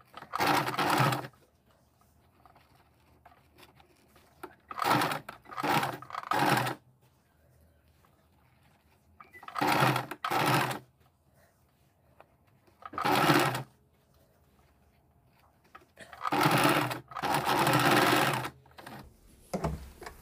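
Electric domestic sewing machine stitching in short bursts, about six in all, each a second or so long with quiet pauses of a few seconds between, while folded fabric pieces are fed under the presser foot. The last and longest run comes near the end.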